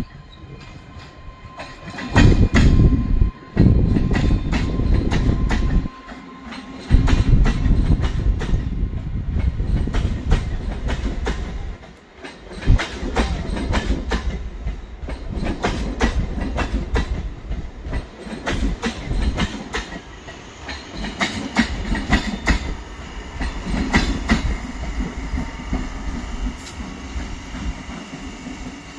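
MEMU electric multiple-unit train running into the station, with a low rumble and many sharp clacks from its wheels crossing rail joints. The rumble is loudest in the first half and eases later on.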